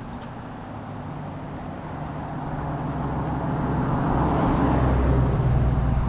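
A motor vehicle's engine humming steadily, growing louder from about two seconds in as it comes closer.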